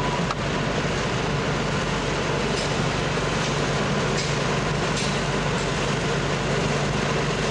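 Steady engine and road noise heard from inside a vehicle moving slowly through traffic, with a low hum under it.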